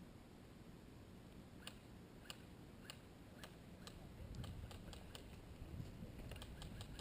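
Faint, sharp clicks of distant airsoft gunfire. Single shots come about every half second from a second and a half in, then a quicker, irregular run follows.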